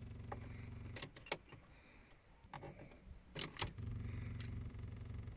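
Ligier X-Too microcar's small two-cylinder diesel idling, switched off with the key about a second in. After a short pause with keys clicking and jangling at the ignition, it is started again and catches after a brief crank, settling back to a steady idle.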